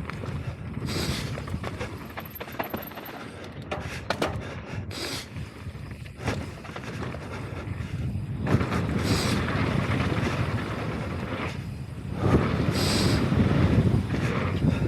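Mountain bike descending a dirt trail at speed: tyres rolling over dirt and rock and wind rushing on the microphone, with sharp knocks and rattles as the bike hits bumps. The sound grows louder in the second half.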